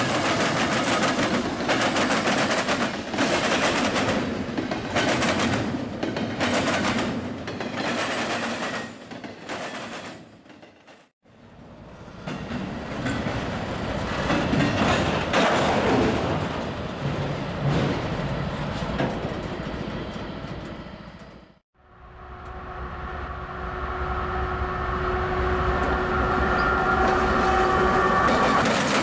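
Freight train passing over a rail crossing diamond: CSX diesel locomotives and then autorack cars, the wheels clacking in a steady rhythm over the joints. After a short break, another approaching CSX diesel locomotive is heard running, with a low rumble and several steady tones.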